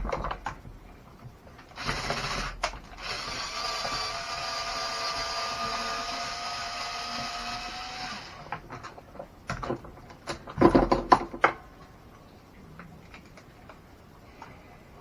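Cordless electric drill/driver running steadily for about six seconds, its whine rising slightly in pitch, as it works on screws on an RC truck. Sharp clicks and knocks of small plastic and metal parts being handled follow.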